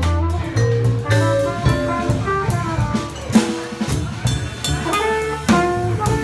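Live jazz combo playing: mallet-struck vibraphone notes ringing over a plucked double bass, with cymbal and drum hits from a drum kit.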